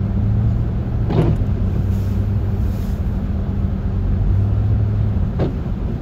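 Cabin noise of a Chevrolet Tahoe driving on snowy roads: a steady low rumble of engine and tyres. Two brief, faint higher sounds come about four seconds apart.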